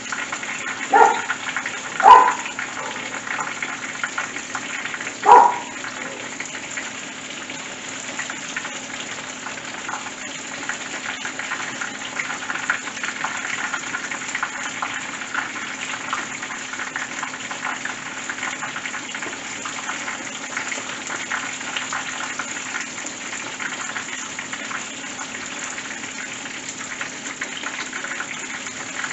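Battered porgy deep frying in a skillet of hot oil: a steady sizzle and crackle throughout. Three short, loud pitched sounds stand out in the first six seconds.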